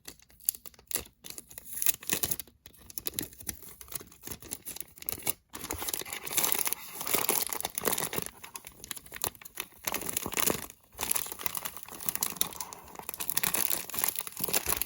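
Crinkling and rustling of an empty chip bag stuffed with filling, handled while clear tape is stuck onto it: irregular scratchy rustles that grow busier from about six seconds in.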